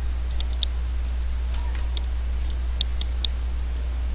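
Computer mouse buttons clicking about eight times at an irregular pace, short sharp clicks, over a steady low hum.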